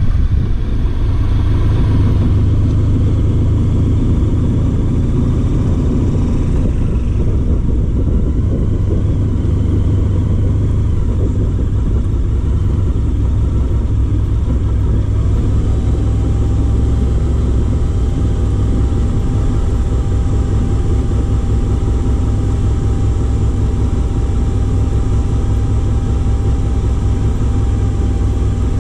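Honda VFR1200's V4 engine running steadily at low speed, a continuous low rumble without revving. A faint steady high tone joins about halfway through.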